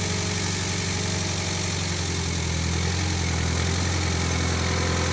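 Small skid-steer loader's engine idling steadily.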